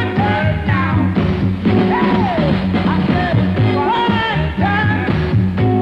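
1960s soul band music: a driving bass and drum groove with a lead line sliding up and down in pitch over it.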